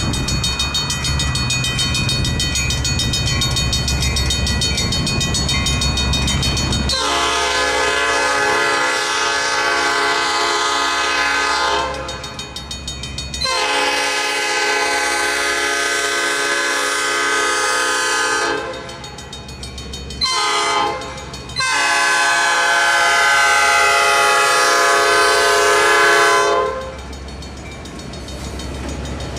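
Diesel locomotive air horn sounding the grade-crossing signal: two long blasts, one short, and a final long one, over the ringing of the crossing bell. Low locomotive engine rumble is heard before the horn starts and again after it stops.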